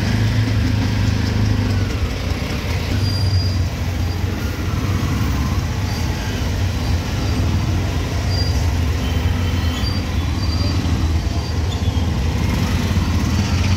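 Auto-rickshaw engine running with a steady low drone, heard from inside the open three-wheeler cabin, over the noise of surrounding traffic. Faint, short high-pitched tones come and go now and then.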